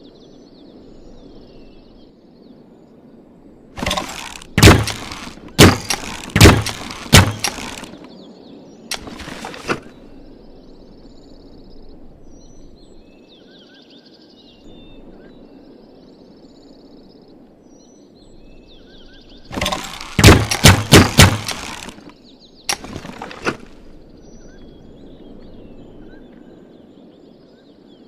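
Bamboo repeating crossbow being worked and shot: two bursts of sharp wooden clacks and snaps, each a few seconds long, the second a quicker run of strikes. Birds chirp in the background.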